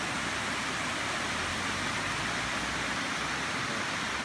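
Steady rush of a mountain stream flowing over small rocky cascades.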